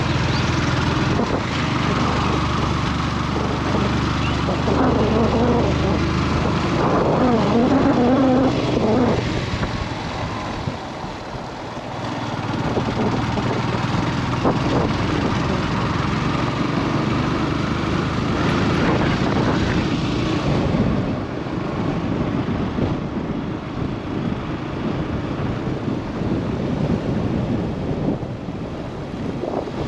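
Motorcycle engine running steadily while riding, with wind noise on the microphone. The engine eases off briefly about ten seconds in, then picks up again.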